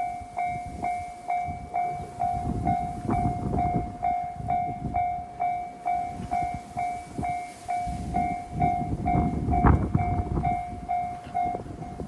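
Japanese level-crossing warning bell ringing at about two strokes a second, stopping near the end. Under it, a single-car KiHa 122 diesel railcar runs past over the crossing with a heavy rumble.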